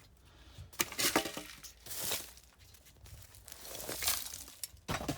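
A handful of short, rough scrapes through loose soil and rubble of brick and stone, spaced about a second apart.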